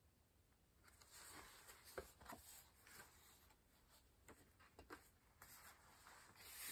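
Faint rustling and light taps of a paperback picture book being handled while its pages are turned.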